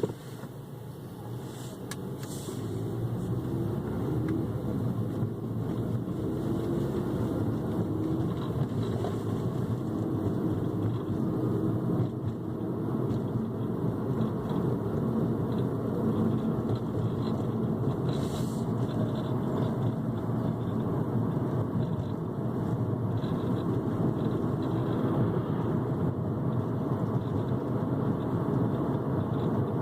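Cabin noise of a 2015 Ford Focus Titanium hatchback on the move, building over the first few seconds and then holding steady. Through it comes an intermittent rattle, with a couple of sharp clicks, from a spot in the car the owner can't pinpoint; it is an unexplained fault in a nearly new car.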